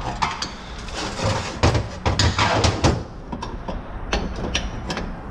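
Metal clanks and clicks from a bench snap press as its lock is disengaged and the press is worked up off a transmission input drum, releasing the apply-piston return spring. The loudest knocks bunch together in the first half, followed by a few sharp clicks.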